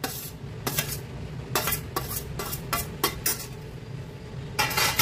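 Steel spoon tapping and scraping on a steel plate as chopped onion is pushed off it into a glass mixing bowl: a string of short clinks, with a longer, louder clatter near the end.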